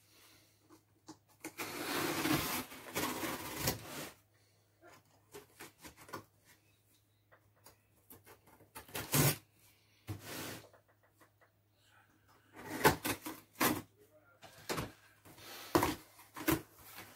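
Cardboard shipping box being opened by hand: packing tape being cut and pulled, with cardboard scraping and rustling. A long scratchy stretch comes in the first few seconds, followed by a scatter of sharp taps and knocks as the box is worked open.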